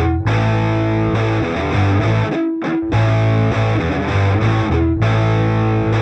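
Rock band playing an instrumental passage: distorted electric guitar over a steady bass line, with no vocals.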